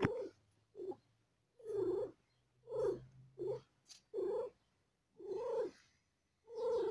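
Cat calling in a run of short cries, about eight of them roughly a second apart, each rising and falling in pitch.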